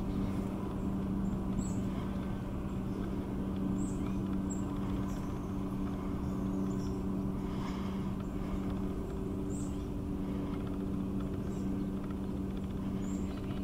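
A steady low mechanical hum, with short, high bird chirps breaking in every second or two.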